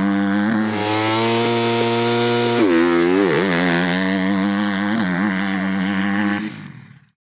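KTM motocross bike engine riding the track, its pitch dipping and climbing with throttle and gear changes and held steady for about two seconds near the middle. The sound fades out shortly before the end.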